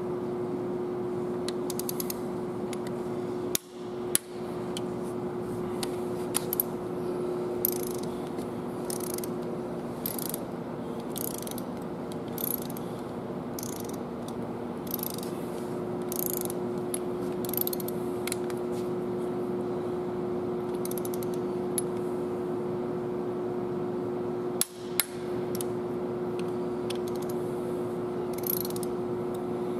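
Hand ratchet clicking in short irregular runs as the injector hold-down screws on a Cummins ISX cylinder head are run down, over a steady shop hum. Two sharper metallic clacks stand out, about four seconds in and again about five seconds before the end.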